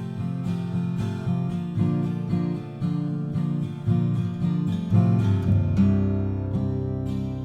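Acoustic guitar played, a run of picked notes and strummed chords; about six seconds in a chord is struck and left to ring.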